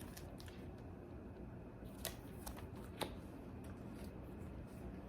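Faint handling of comic books and paper: quiet shuffling, with a couple of short taps or clicks about two and three seconds in.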